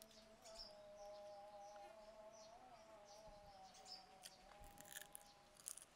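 Near silence: faint birds chirping over a low steady hum, then a few soft, crisp crunches near the end as a deep-fried cricket is bitten.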